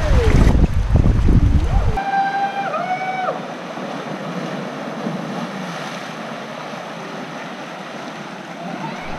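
Wind buffeting the microphone with a heavy low rumble, cut off abruptly about two seconds in. A steady outdoor hiss follows, with a short two-note whistle-like tone just after the cut.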